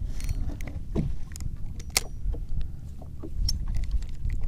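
Spinning reel and jigging rod being handled, with scattered irregular clicks and ticks from the reel over a steady low rumble.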